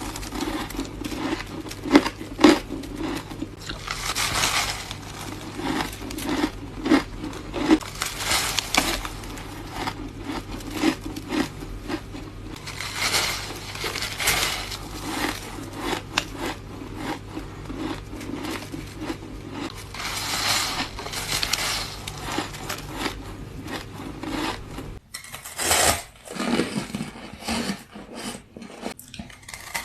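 Close-up crunching and chewing of soft ice and freezer frost: repeated crackly bites with sharp cracks among them, over a steady low hum that stops suddenly near the end.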